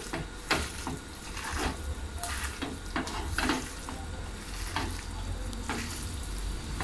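Hands working a coarse grated-coconut and anchovy mixture in an earthenware pot: soft rubbing and squishing, with irregular short scrapes of fingers against the pot's wall.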